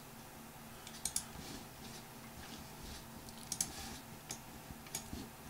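Scattered clicks of a computer mouse and keyboard keys, a few at a time, over a faint steady hum.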